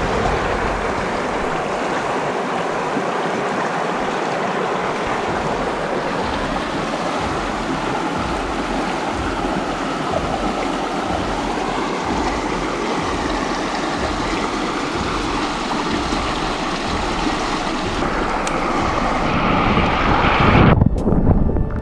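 Shallow creek water rushing and churning around a camera held at and under the surface, a steady full-range wash that swells louder near the end and then cuts off abruptly.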